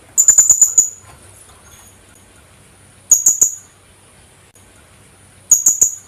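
Philippine hanging parrot (colasisi) calling: three short bursts of rapid, shrill, high-pitched notes, four to six notes per burst, each burst under a second long. The bursts come at the start, about three seconds in, and near the end.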